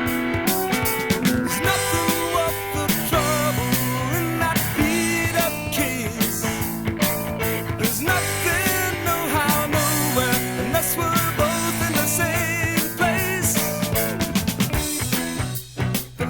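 Rock band recording played from a vinyl LP: a passage without clear vocals, carried by guitar with wavering, bending notes over a steady low bass. There is a short break in the sound a little before the end.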